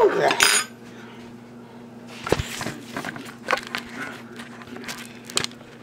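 Scattered knocks and clicks of handling as a potato is picked up off a plate and carried, with the camera being moved, over a steady low hum. A brief voice cry comes at the very start.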